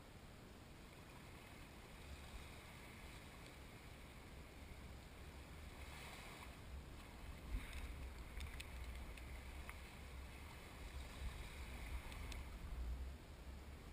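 Wind buffeting the microphone: a low gusting rumble over a steady hiss, stronger from about two seconds in and easing near the end, with a few faint clicks.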